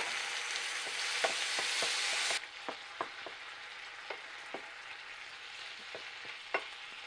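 Water poured into a hot non-stick pan of mashed banana sizzles loudly and cuts off abruptly after about two and a half seconds. A quieter simmer follows, with a wooden spatula stirring and clicking against the pan.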